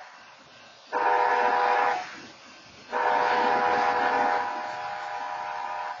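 BNSF locomotive air horn, a steady multi-tone chord, sounding a short blast about a second in and then a long blast from about three seconds in: the short-then-long close of the long-long-short-long signal for a grade crossing.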